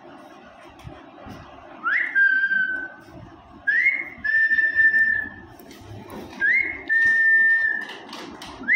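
A person whistling three times, each a quick upward slide into a steady held note about a second long, with a fourth whistle starting right at the end.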